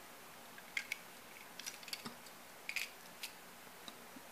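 Faint, scattered clicks and light taps as two small diecast toy cars are handled and turned in the hand, their metal bodies and plastic wheels knocking together several times.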